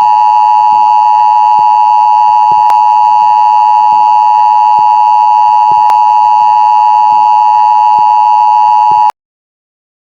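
Mock Emergency Alert System two-tone attention signal: a loud, steady dual-pitch tone just under 1 kHz. It cuts off suddenly about nine seconds in.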